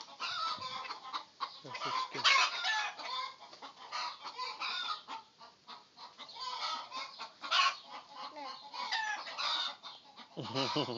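Chickens clucking, a steady run of short, irregular calls.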